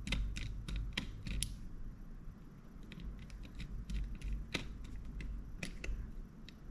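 Light, irregular clicks and ticks of a flathead screwdriver turning and tightening small screws in a Shimano Cardiff 401A baitcasting reel, over a low handling rumble.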